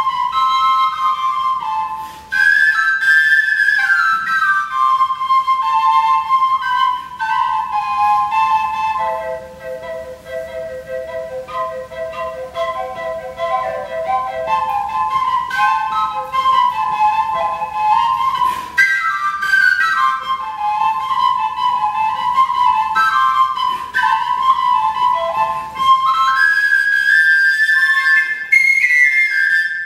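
Solo wooden end-blown flute playing a slow, free melody with slides between notes. For several seconds in the middle a lower second tone sounds under the melody.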